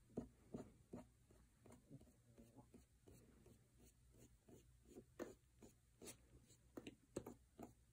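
Faint, irregular dabs and rubs of a fingertip dragging paint across paper, with a few slightly louder strokes in the second half.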